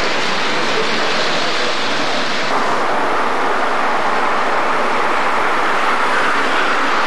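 O-scale model trains running on the layout track: a steady rushing rumble of wheels on rails. About two and a half seconds in, the sound grows brighter and closer as a train rolls past.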